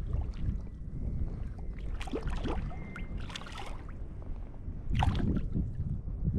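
Wind buffeting the microphone with a steady low rumble, while shallow bay water splashes three times: about two, three and a half and five seconds in.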